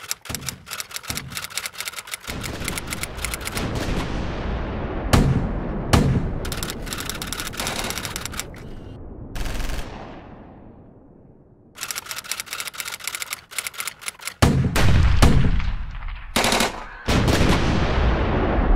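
Sound effects: bursts of rapid rattling clicks over a low rumble, with heavy booms about five and six seconds in and a louder run of booms and rumble in the last few seconds. Around ten seconds in it fades to a quieter stretch.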